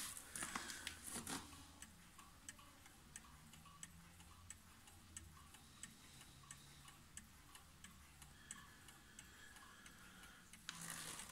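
Mechanical pendulum movement of a restored early-20th-century Amsterdam School table clock ticking faintly and evenly. Brief rustling noises come near the start and at the end.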